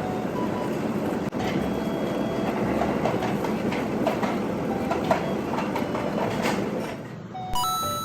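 Steady rumbling, rattling noise with scattered clicks. Light bell-toned background music comes in near the end.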